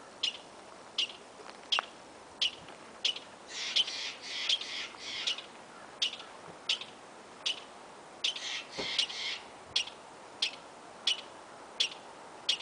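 A squirrel calling over and over with a sharp, high chirp, about three chirps every two seconds. A third of the way in, and again about two-thirds in, the chirps run into a quicker rasping chatter.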